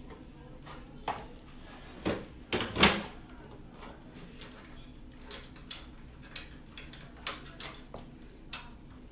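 The monitor's parts and accessories being handled during unboxing. A few knocks and clatters, loudest in a cluster about two to three seconds in, then scattered light clicks.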